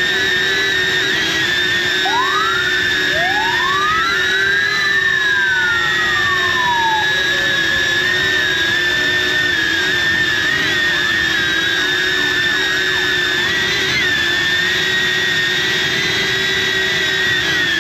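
DJI Avata FPV drone's propellers whining steadily at a high pitch. Under the whine, an emergency-vehicle siren sweeps up and then down once, from about two to seven seconds in.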